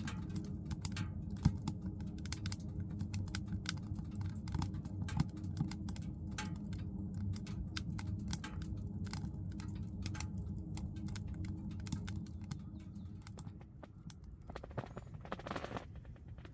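Wood fire crackling: irregular sharp pops and snaps over a low steady hum.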